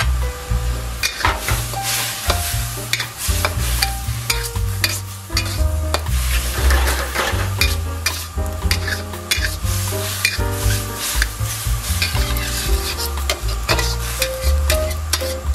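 Metal wok spatula scraping and stirring around a wok as glass noodles and vegetables sizzle in their sauce, with frequent short clicks of metal on metal. Background music with a bass line plays underneath.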